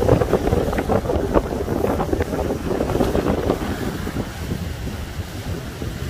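Strong gusting wind buffeting the microphone, over rough sea with waves breaking and splashing against a seawall. The gusts are strongest in the first half and ease off after about four seconds.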